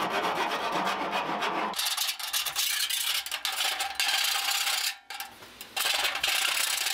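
Hand file scraping back and forth in quick strokes along the cut metal edge of a gas grill's opening, deburring it. The strokes break off briefly about five seconds in, then resume.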